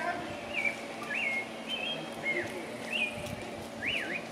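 A bird calling: a series of short whistled notes, each a quick dip or rise in pitch, about one every half second, with a longer swooping note near the end.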